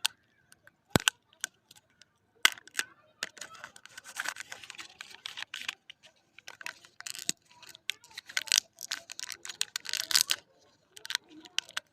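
Kinder Joy egg wrappers crinkling and tearing as they are opened, in dense crackly bursts, after a few sharp clicks.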